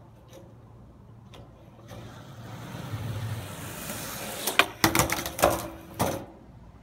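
Skateboard wheels rolling on concrete, growing louder as the board approaches, then a quick run of sharp clacks as the board's deck and wheels hit the concrete, about four or five within a second and a half, before it stops.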